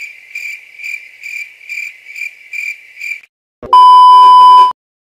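Cricket chirping sound effect, one high chirp a bit over twice a second for about three seconds. Near the end comes the loudest thing: a one-second TV colour-bar test-tone beep with static, cutting off suddenly.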